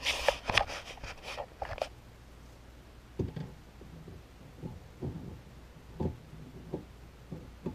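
Adjustable wrench tightening the drain nut under a bathroom sink basin to stop a leak at the drain connection. There is a quick run of sharp clicks in the first two seconds, then soft knocks and creaks every half second or so as the nut is turned.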